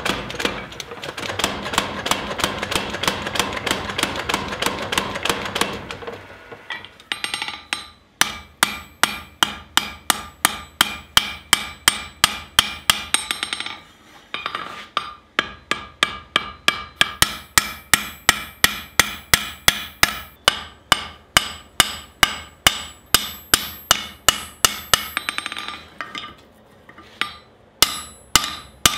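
A power hammer pounds hot steel in a fast run of blows for about the first six seconds. Then a hand hammer strikes the hot pickaxe head on the anvil about twice a second, each blow ringing. The hammering stops briefly about halfway through and again near the end.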